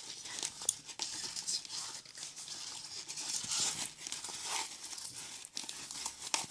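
Styrofoam pieces and eucalyptus oil being stirred and squeezed by hand in a pan, giving an irregular crinkling, crackling rustle as the foam breaks down into slime.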